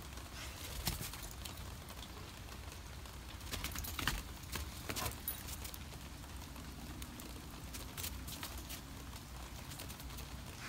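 Footsteps crunching and knocking in snow on a wooden deck, a few irregular steps over a steady low rumble.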